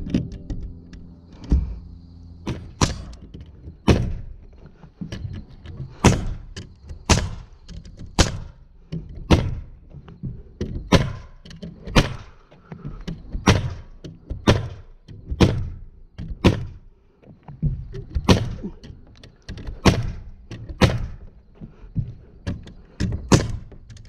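Framing nailer shooting nails down through OSB roof sheathing, one sharp shot roughly every second.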